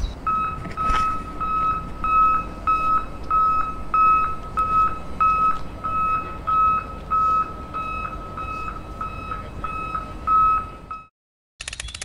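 Electronic beeping like a vehicle's reversing alarm: one high tone pulsing evenly about twice a second. It stops about eleven seconds in.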